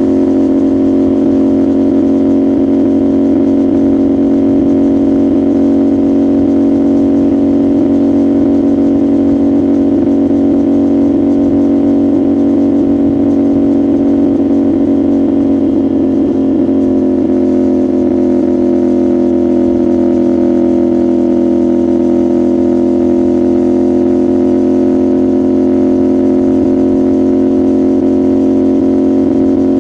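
CFMoto 450SR parallel-twin engine and exhaust running at a steady cruising speed, a constant drone with a slight change in pitch a little past halfway.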